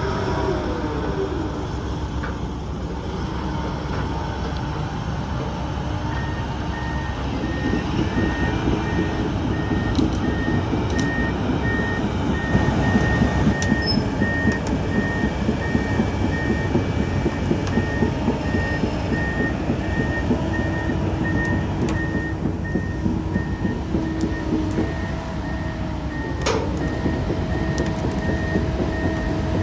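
Komatsu PC290LC-11 excavator's diesel engine running with a shifting hydraulic whine. From about six seconds in, its travel alarm gives a steady string of high-pitched beeps, the sign that the machine is tracking.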